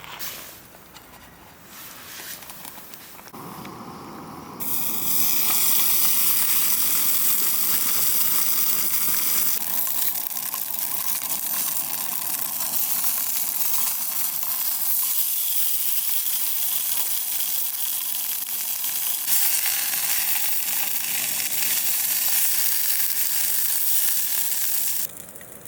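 Food frying in a pan: a steady sizzle that comes in loud about four seconds in and cuts off abruptly just before the end.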